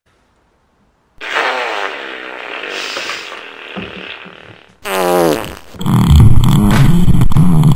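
A series of loud fart sounds: silence for about a second, then a long fart wavering in pitch, a few low sputters and a shorter blast, and a very loud, deep, rumbling one over the last two seconds.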